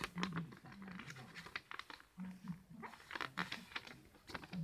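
Crinkling, scratching and clicking of material being handled and worked while a model plane is built: irregular sharp rustles and clicks.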